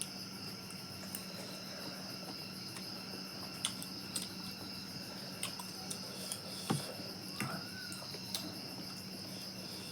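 Steady high-pitched insect chirring, with a few short clicks scattered through.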